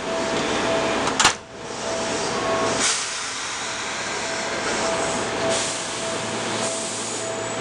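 Seibu 2000-series electric commuter train starting off and rolling out along the platform. A sharp click comes about a second in, and a steady hiss of running noise begins about three seconds in.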